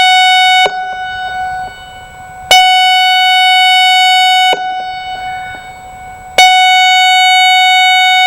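ASC I-Force electronic outdoor warning siren sounding a steady, horn-like tone in blasts about two seconds long, with pauses of about two seconds between them. Each blast cuts off sharply and its tone carries on fainter through the pause as an echo.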